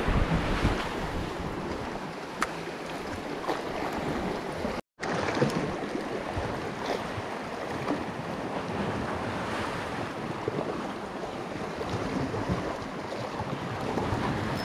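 Sea waves washing against a rocky shore, with wind buffeting the microphone; the sound drops out briefly about five seconds in.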